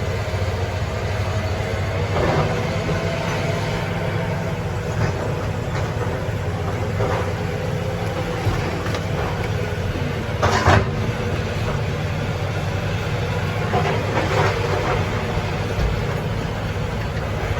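John Deere backhoe's diesel engine running steadily with a low hum, with a few short clanks, at about 2, 11 and 14 seconds in.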